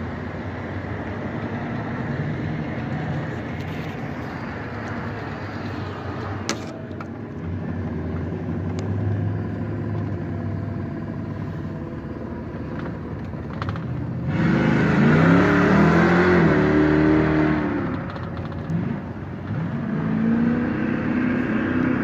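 Car engine driving along with throttle burps: steady engine and road noise, then a loud rev about two-thirds of the way in that climbs in pitch and falls back over about three seconds, and another rising rev near the end.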